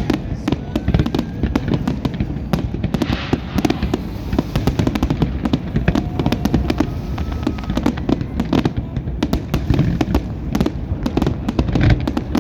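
Large fireworks display: a dense, unbroken barrage of bangs and crackling, with a heavy rumble underneath.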